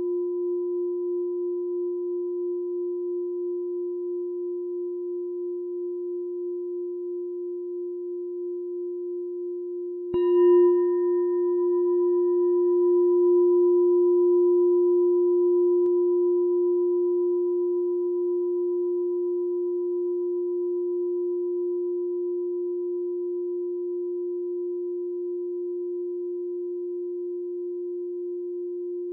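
Meditation bell ringing with a steady low tone that wavers slowly in loudness. It is struck once about ten seconds in, with a brief bright attack, then the ring swells and fades slowly.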